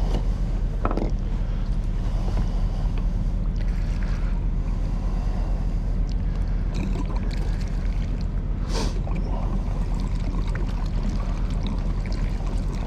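An engine running steadily at idle, a low even hum, with a couple of brief knocks about a second in and near two-thirds of the way through.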